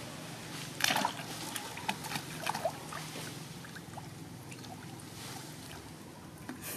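Baby macaques splashing and paddling in a clay pot of muddy water: a few splashes and drips, the loudest about a second in, over a steady low hum.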